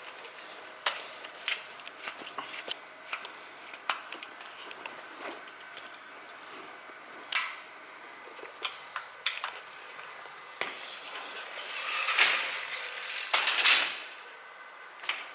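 Scattered small metallic clicks and clinks of screws and a hand tool as a sliding screen door lock's striker is screwed in place. There are three short louder scraping bursts, one about seven seconds in and two near the end.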